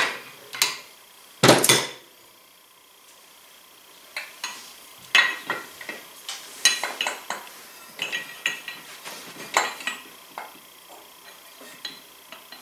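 Hand tools clinking and knocking against a Polaris RZR XP 1000 secondary clutch while a new roller is worked into place. There is a sharp metal knock about a second and a half in, then a run of lighter, scattered clicks.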